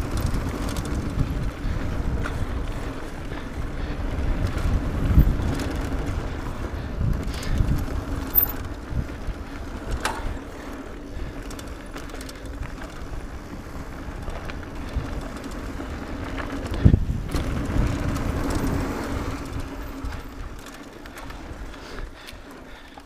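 Mountain bike riding down a dirt trail: tyres rumbling over the dirt with rattling and knocking from the bike over bumps, two hard knocks about five and seventeen seconds in. It eases off near the end.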